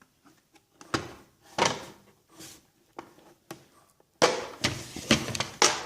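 Tools and their cases being handled in a metal machinist's toolbox: scattered knocks and clunks, then a louder sliding scrape with more knocks about four seconds in.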